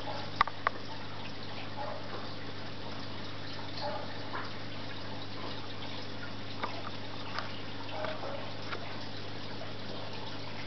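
Aquarium filter running: a steady low hum with water dripping, a soft blip every couple of seconds, and two sharp clicks about half a second in.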